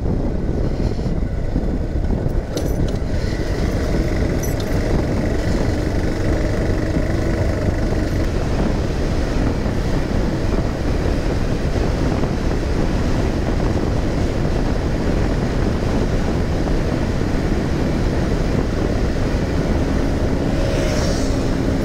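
Motorcycle engine running steadily at cruising speed, about 55 to 70 km/h, under a steady rush of wind and road noise.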